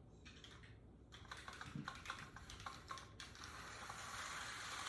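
HO scale model steam locomotive set running in reverse on its track. A run of faint light clicks is followed, after about three seconds, by a steady faint whirring hiss.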